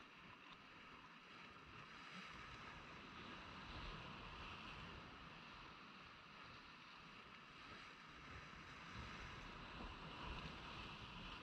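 Faint surf washing against a rock jetty: a steady hiss that swells about four seconds in and again near the end.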